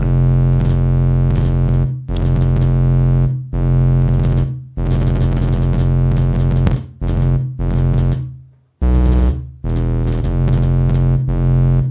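Sine test tone distorted by the Wolf Shaper waveshaper plug-in: a low, buzzy, clipped tone that stops and restarts several times, peppered with clicks. The clicks are a glitch from toggling the plug-in's DC-offset center button, not part of its intended function.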